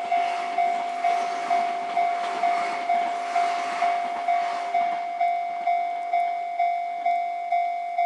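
Japanese level-crossing warning bell ringing steadily about twice a second. A train runs past during the first five seconds, its running noise fading out about five seconds in while the bell keeps ringing.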